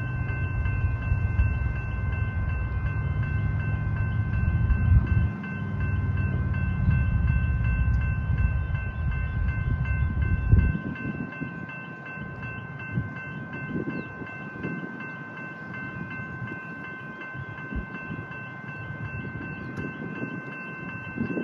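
Railway level crossing warning bells ringing steadily as the boom gates come down. A heavy low rumble lies under them for the first half and stops abruptly about ten seconds in.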